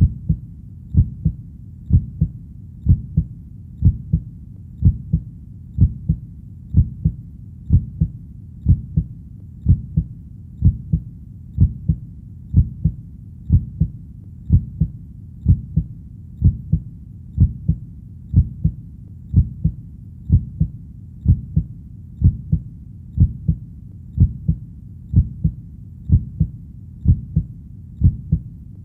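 Heartbeat, steady and slow at about one beat a second, each beat a low double lub-dub.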